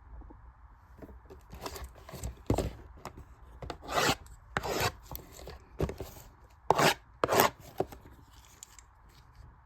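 Trading card box packaging being opened by hand: irregular scraping and rubbing strokes of cardboard and wrapper, a few of them louder.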